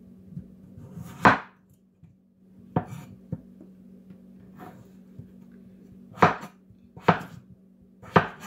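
Cleaver chopping a peeled potato into long strips on a wooden cutting board: about seven sharp chops at uneven intervals, the loudest about a second in.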